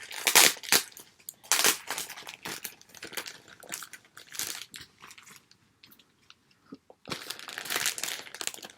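Plastic sheet-mask packaging rustling as it is handled and opened, in irregular bursts with a short lull about two-thirds of the way through.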